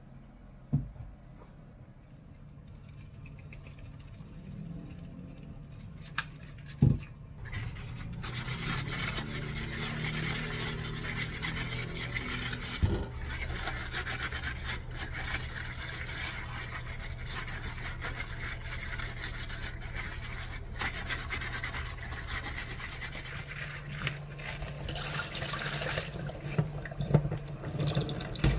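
Steady rush of running water that starts about eight seconds in, after a few sharp knocks.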